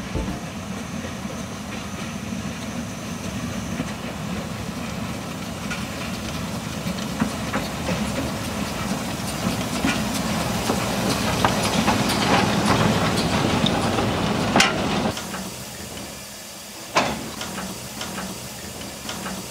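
Narrow-gauge steam locomotive built by Hartmann in 1919 drawing its wooden carriages in slowly, with steam hissing and wheels clicking on the rails. The sound falls away about 15 s in, and a single sharp knock comes about two seconds later.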